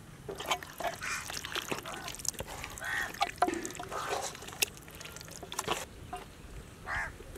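Wet squelching and slapping of hands kneading whole chickens in a thick curd-and-spice marinade in a large aluminium pot, with sharp clicks as the meat slaps against itself and the pot. A few short nasal honk-like calls sound in the background.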